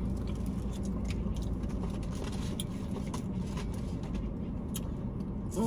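Steady low rumble inside a car's cabin, with scattered faint clicks and taps of eating and handling food, and a faint low hum during the first second.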